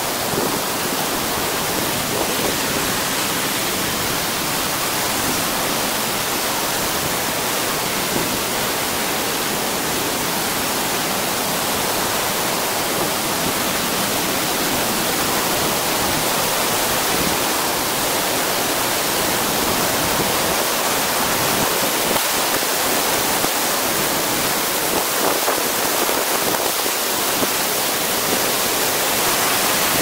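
Grey Mare's Tail waterfall: a steady, full rush of falling water, getting slightly louder near the end.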